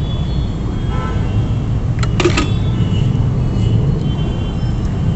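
Steady low rumble of road traffic, with a brief sharp clatter about two seconds in.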